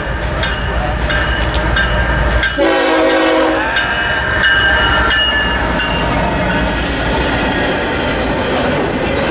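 CSX GE diesel locomotive passing close by, its engine rumbling, sounding one short horn blast of about a second roughly two and a half seconds in; the freight cars behind it then roll past with wheel clatter and rattling.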